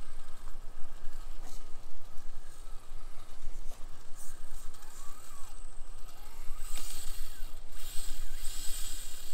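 FMS FCX24 micro RC crawler's small electric motor and drivetrain whining as it is driven over rocks, the pitch briefly rising and falling with the throttle, over a steady low rumble.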